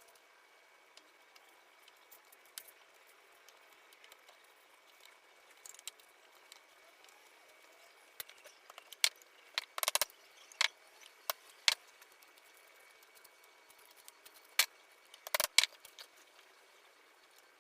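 Irregular sharp knocks and clicks of wooden shutter parts being handled and fitted together in the workshop, a dozen or so, sparse at first and then bunched in the middle and again near the end.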